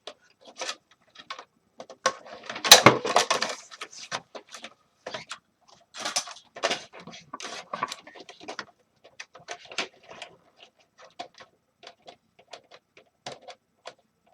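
Scattered clicks, knocks and rubbing of plastic and metal parts being handled and worked loose while a space heater is taken apart, with a louder burst of rattling about two to three and a half seconds in.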